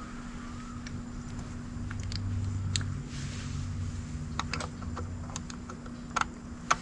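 Scattered light clicks and taps of a hand screwdriver and small screws against an e-bike's aluminium frame as the controller cover screws are being undone.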